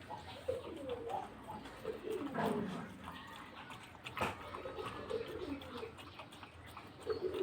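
Low bird coos, repeated again and again, each falling in pitch. There is a sharp click about four seconds in.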